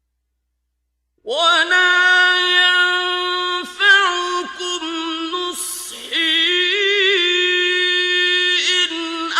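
A male Quran reciter's voice in melodic tajweed recitation, starting about a second in and holding long, drawn-out notes with ornamental turns in pitch. A brief hiss, a sibilant or a breath, falls about halfway through.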